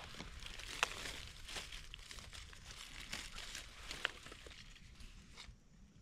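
Dry leaf litter and twigs rustling and crackling as someone moves about on the forest floor searching for and picking mushrooms, with scattered sharp snaps, the clearest about a second in and again about four seconds in.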